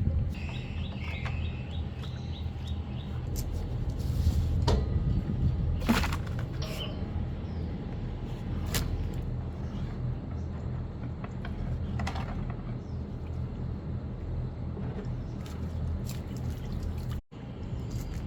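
A steady low motor hum, with a short run of bird chirps in the first few seconds and scattered sharp clicks.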